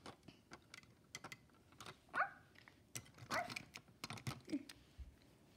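Light clicks and taps of plastic Duplo pieces being handled, with two short, falling, dog-like whimpers about two and three and a half seconds in.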